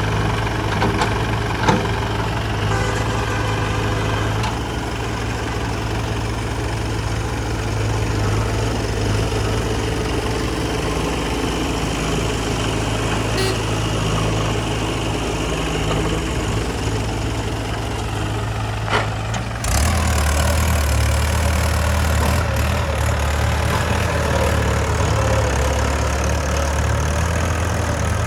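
Diesel engine of heavy earth-moving machinery running steadily at low revs. About two-thirds of the way through there is a short knock, then the engine's low hum changes abruptly to a different, deeper note.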